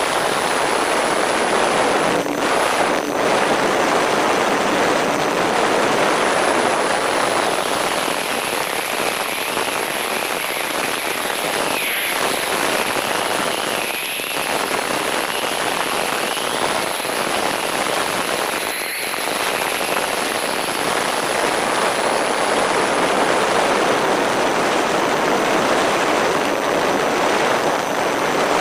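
MFD Crosswind Nimbus Pro twin-motor electric RC plane in flight: a steady rush of airflow over the camera's microphone, with the whine of its propellers faintly rising and falling around the middle.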